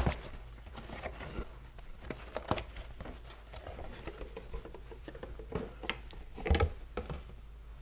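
Handling of a cardboard champagne gift box as the bottle is slid out of it: scattered light clicks, scrapes and rustles of cardboard and glass, with a louder knock-and-rustle about six and a half seconds in.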